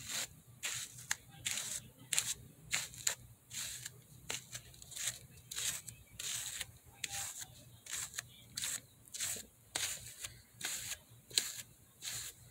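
A hairbrush pulled through a Failfix doll's curly synthetic hair, in quick repeated brushing strokes with a scratchy rustle, nearly two a second.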